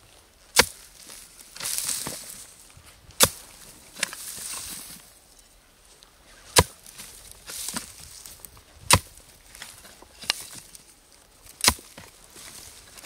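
Hoe blade chopping into dry earth at a burrow: five sharp strikes a few seconds apart, with rustling and scraping of dry grass and loose soil between them.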